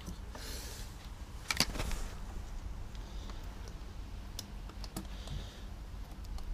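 Scattered light clicks and rattles of hands working a motorcycle's throttle cable and its fittings, with the sharpest clicks about a second and a half in and soft brushing sounds twice later.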